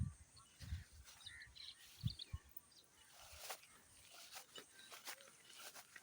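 Faint rural outdoor ambience: a cold wind buffeting the microphone in a few low thumps, with a few faint bird chirps.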